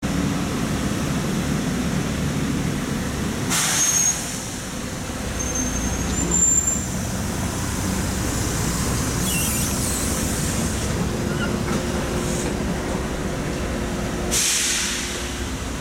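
LiAZ-5292.22 low-floor city bus idling with a steady diesel rumble. Two short bursts of compressed-air hiss come from its pneumatic system, one about three and a half seconds in and one near the end.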